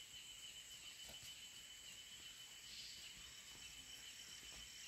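Near silence: faint outdoor ambience with a thin, steady high-pitched insect drone, joined by a faint pulsing chirp from about halfway through.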